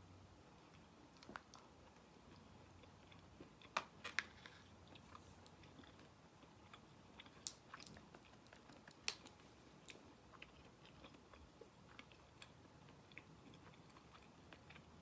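A person chewing food up close, with scattered soft mouth clicks and a few sharper clicks, the loudest about four seconds in and again about nine seconds in.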